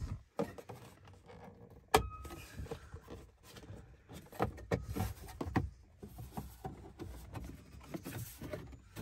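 Irregular plastic clicks and knocks of the dashboard trim around a 2012 Ford F-150's gauge cluster being handled and worked loose, with one sharp click about two seconds in.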